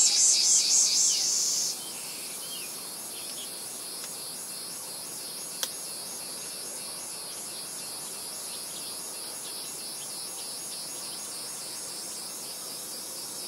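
Insects chirping in rapid high pulses, about three or four a second. A loud close one stops abruptly about two seconds in, and fainter pulsing chirps and a steady high hiss carry on. A single short click comes about five and a half seconds in.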